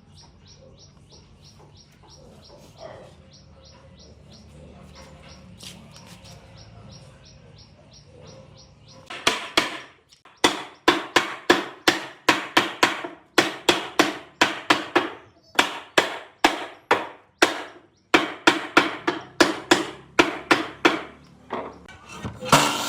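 Repeated hammer blows, about two a second, each ringing briefly, starting about nine seconds in. A power tool starts up right at the end.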